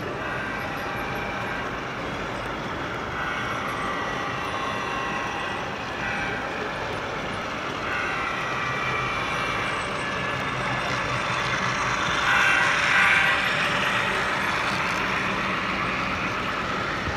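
Model freight train running on layout track: the locomotives and a long string of cars rolling over the rails with a continuous mechanical hum and rail noise. It gets louder about twelve to thirteen seconds in as the train passes close.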